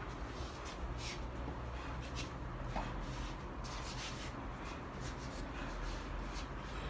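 Shoes scuffing and shuffling on a tiled floor with clothing rustling during footwork, in short irregular strokes over a steady low background rumble.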